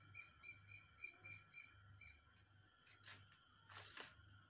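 Faint, quick series of high chirps from a small bird, about eight in two seconds, then two soft rustling swishes about three and four seconds in.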